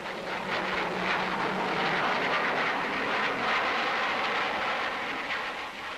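Jet aircraft flying past: a loud rushing engine noise that builds over the first second, holds, and slowly fades toward the end.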